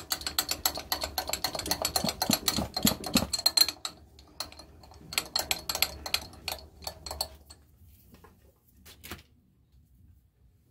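Milling machine table being moved by hand, its feed mechanism giving a fast run of mechanical clicks for about three and a half seconds, then slower scattered clicks that die out after about nine seconds.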